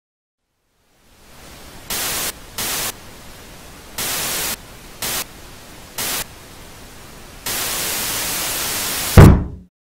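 Television static hiss, starting faint about a second in and swelling five times into short louder bursts of static. It then holds loud and steady for a couple of seconds before a loud low boom cuts it off near the end.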